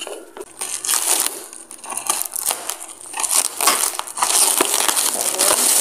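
Clear plastic wrap crinkling and crackling in irregular bursts as hands pull and crumple it off a cardboard box, louder in the second half.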